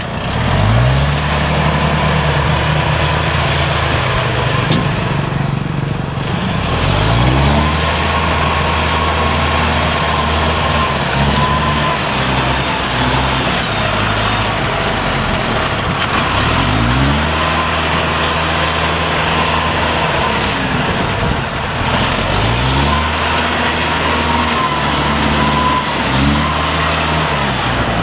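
Kubota DC70 combine harvester's diesel engine being revved up and held at high revs several times, dropping back in between, as the machine is manoeuvred down a ramp. A steady higher whine sits over the engine note.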